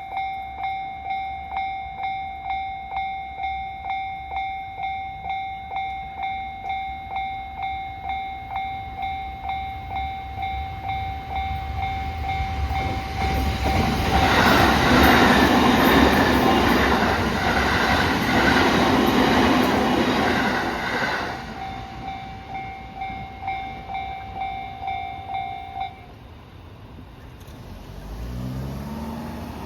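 Japanese railway level-crossing warning bell ringing with a steady electronic ding, a little under two strikes a second. A JR Uchibō Line train rumbles through over the rails from about twelve seconds in and for roughly ten seconds, drowning the bell for a while. The bell cuts off suddenly a few seconds after the train has passed, and a low rising engine-like tone follows near the end.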